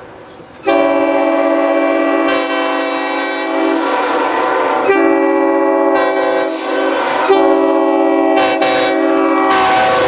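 General Electric five-tone air horn sounding a loud, sustained chord of several tones from an approaching vehicle. It starts about a second in, is held, and is re-blown twice, growing brighter near the end as the vehicle nears.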